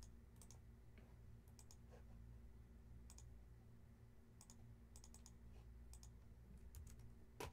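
Faint computer mouse clicks at irregular intervals, several in quick pairs like double-clicks, over a steady low electrical hum.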